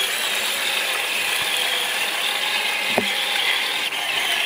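Radio-controlled scale truck's electric motor and gearbox whirring steadily as it drives in the mud pit.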